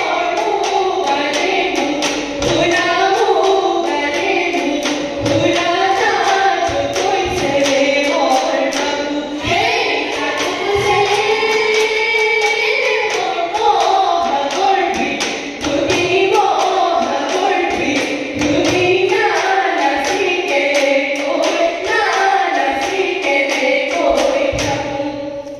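Women singing a Jeng Bihu song together over a steady beat of sharp percussion clicks, about three to four a second. The song stops abruptly near the end.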